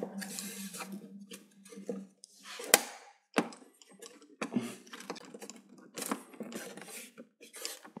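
Work noise from screws being tightened and parts handled on a television being put back together: irregular clicks, taps and scraping of plastic and metal. A low steady hum runs for about the first two seconds.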